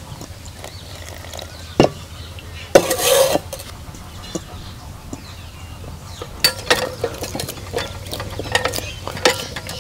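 Cold water poured briefly into a bowl of flour rubbed with ghee, about three seconds in, then the dough mixed by hand, with scattered clicks and knocks against the bowl.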